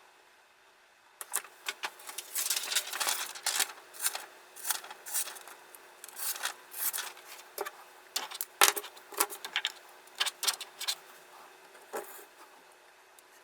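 Diamond sharpening bar scraping along a steel knife blade in quick, irregular strokes, mixed with light metallic clicks, on a guided knife-sharpening system.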